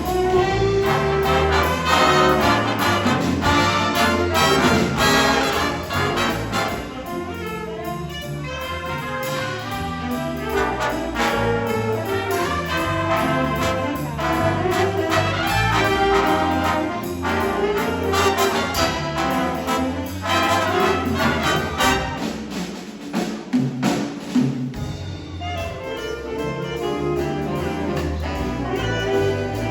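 A big band playing jazz, with trumpets and trombones over bass and drums; the band drops to a sparser passage of separate hits a little past two-thirds of the way through, then comes back in full.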